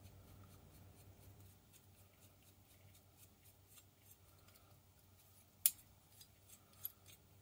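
Faint metallic clicks and light scraping of an old metal spokeshave handled in the fingers as its small threaded adjusting nut is unscrewed, with one sharp click about five and a half seconds in.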